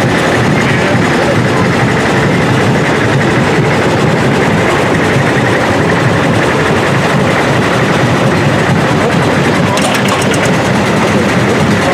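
Engine of a small site dumper running steadily close by, a rapid even chugging.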